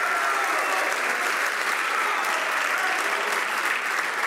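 Members of Parliament applauding in the chamber: steady, dense clapping with faint voices mixed in.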